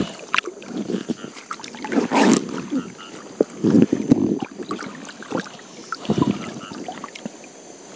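Water splashing and sloshing in irregular bursts, with small knocks and clicks, as a gill net is worked by hand in a river; the loudest splash comes about two seconds in.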